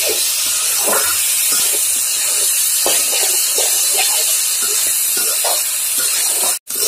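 Raw rice and lentils frying in oil in a kadai: a steady sizzle with a metal spatula scraping and stirring through the grains, stroke after stroke. It is the dry-frying stage, before spices and water go in. The sound breaks off for a moment near the end.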